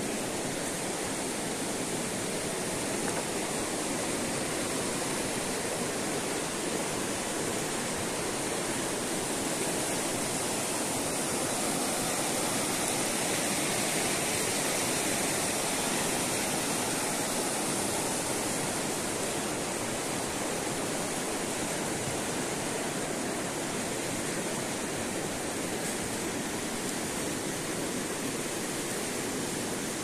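A river full of water flowing fast: a steady, unbroken rush of water noise with no change in level.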